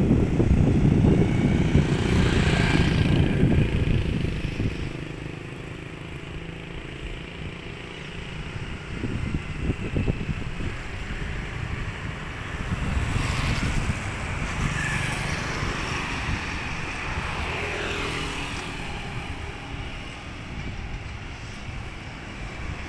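City street traffic: motorcycles and cars passing, with a low rumble that is heavier in the first few seconds.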